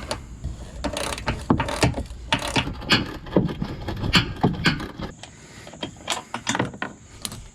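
Socket ratchet clicking in quick, irregular strokes as bolts holding the bumper's frame brackets are backed out. The clicks thin out and grow fainter about five seconds in.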